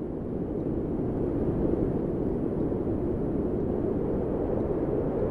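A steady, dense rumbling roar of noise, without tune, beat or voice.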